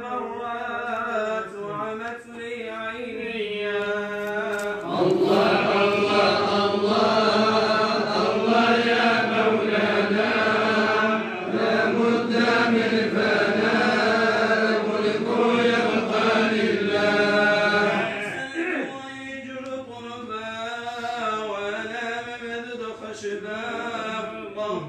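Male voices chanting an Arabic madih, a devotional praise song for the Prophet. A single voice sings at first. About five seconds in, the group joins and the chant grows louder and fuller for some thirteen seconds, then a single voice carries on again near the end.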